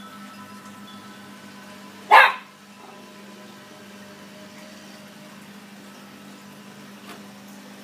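Small wiry-coated dog gives a single sharp bark about two seconds in.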